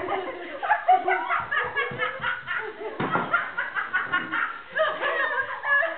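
Two young women laughing hard, in quick repeated bursts of giggling and snickering, with a sharp smack about three seconds in.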